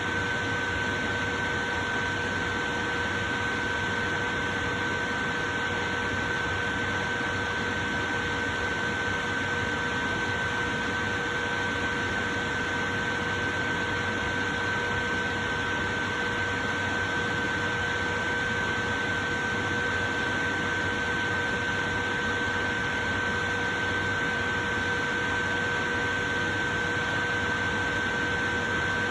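Portable electric fan running steadily: an even rush of air with a constant whine over it.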